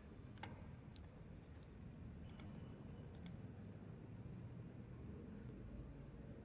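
A few faint, sharp computer mouse clicks, about four of them in the first three seconds or so, over a low steady hum of room tone.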